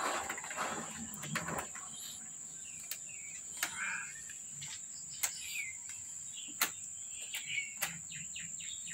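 A steady high-pitched whine with scattered bird chirps and a handful of sharp clicks.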